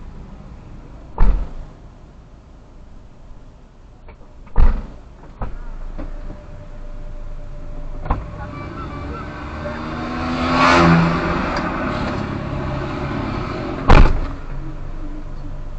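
Car doors shutting with sharp heavy thuds: three loud slams, about a second in, at about four and a half seconds and near the end, plus a couple of lighter knocks. Under them a stopped car's engine idles with a steady low hum, and a louder rush of noise rises and falls about ten seconds in.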